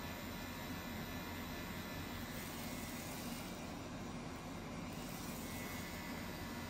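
Pen-style rotary tattoo machine running with a steady hum while it tattoos skin.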